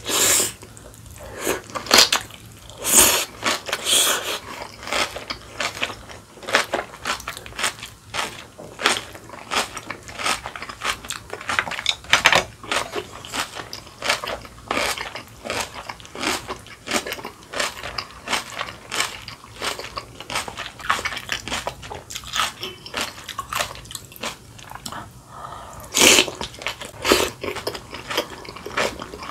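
A person chewing cabbage kimchi close to the microphone: a steady run of crisp crunches and wet mouth sounds. The crunching is louder just after the start and again near the end.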